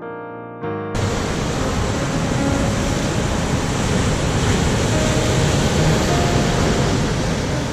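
Piano music for about the first second, then, after a sudden cut, ocean surf breaking and churning over rocks, loud and continuous.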